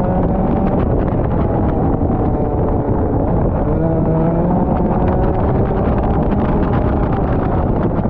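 Rotax Max 125cc single-cylinder two-stroke kart engine at racing speed, its pitch climbing under acceleration and dropping off several times as the kart brakes and accelerates through corners.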